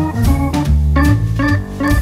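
Background music: a keyboard tune with an organ sound over a bass line and a steady beat.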